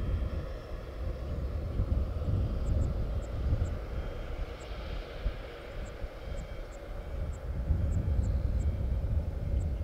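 Airport apron noise around a parked Boeing 787: a low, uneven rumble that swells and eases, under a steady mechanical hum, with faint high ticks now and then.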